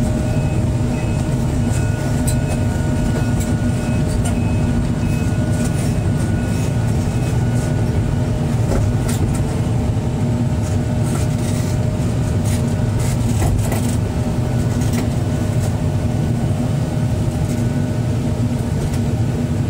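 Excavator diesel engine running steadily while the machine tracks slowly forward, with a few sharp clicks scattered through it.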